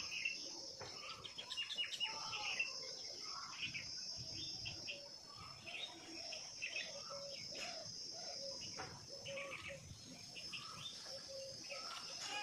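Birds chirping, with many short, quick calls, over a steady high-pitched insect trill.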